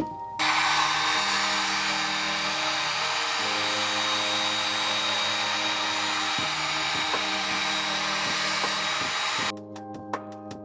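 Electric heat gun blowing hot air in a steady rush, warming the contact-paper backing on a resin-coated coaster so it can be peeled off. It starts about half a second in and cuts off shortly before the end, leaving background music.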